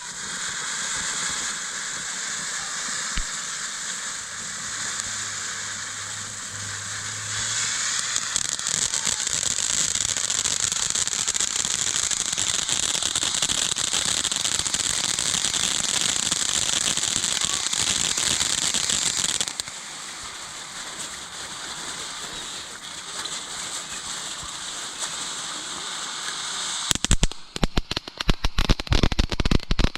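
Firework fountain burning with a steady hissing spray of sparks, which grows louder for a stretch in the middle and then eases. Near the end it breaks into rapid crackling pops.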